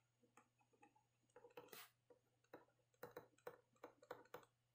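Near silence with a scattered run of faint ticks from a stylus tapping and writing on a tablet screen, most of them in the second half.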